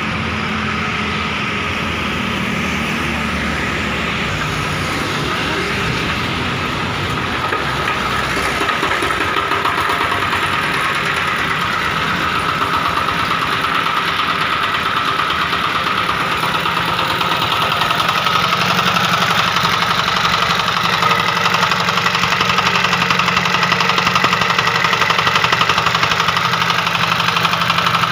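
Jiangfa R185 10 hp single-cylinder diesel engine running with a steady, rapid knock of its firing strokes. It grows louder about eight seconds in and again a little past halfway.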